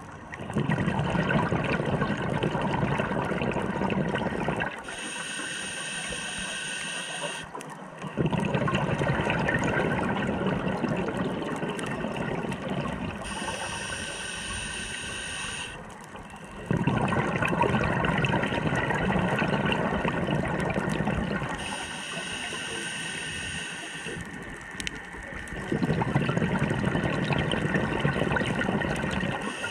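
Scuba diver's own breathing through a regulator underwater. Four long rushes of exhaled bubbles come about eight seconds apart, each followed by the quieter hiss of an inhale.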